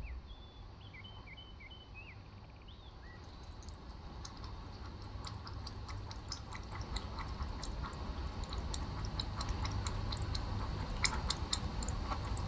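A cat at a glass bowl, its small mouth clicks growing louder and denser as the phone's audio zoom closes in on it. A few faint rising chirps come in the first three seconds, over a low room hum.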